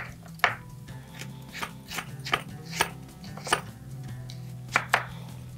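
A chef's knife slicing carrot on a wooden chopping board: about eight sharp, unevenly spaced knocks of the blade against the board.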